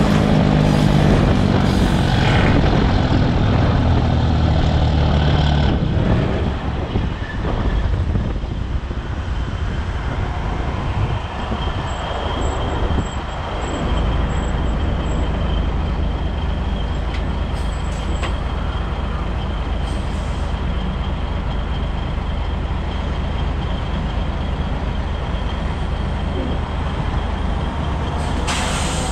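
Cabover Peterbilt 362 semi's diesel engine running with road noise as the rig slows and comes to a stop. The sound is fuller for the first six seconds or so, then drops and settles into a steady running sound.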